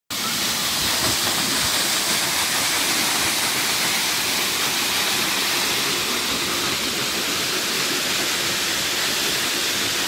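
Waterfall pouring into a pool below: a loud, steady rush of falling water.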